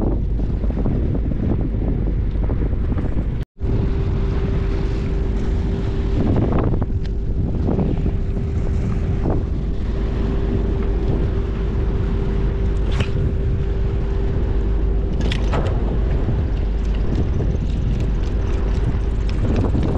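Wind buffeting the microphone, with the steady hum of a cargo ship passing close by. The sound drops out for a split second about three and a half seconds in.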